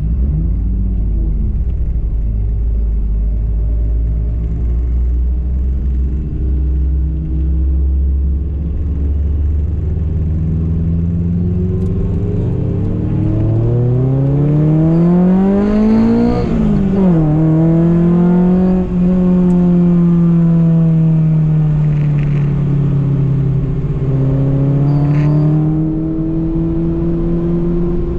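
Honda Civic Nouva's engine heard from inside the car under acceleration: a low, steady rumble at first, then the revs climb steadily for several seconds, drop sharply on an upshift about two-thirds of the way in, and climb again in the next gear near the end.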